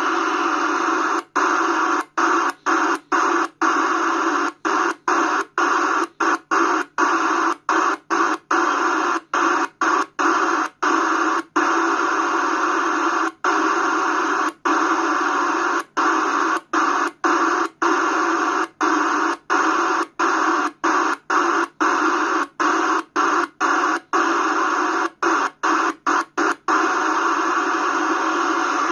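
President Grant 2 Premium CB radio's speaker hissing with steady static on the UK FM band, with no station heard. The hiss cuts out briefly dozens of times, about every half second, as the radio is stepped from channel to channel.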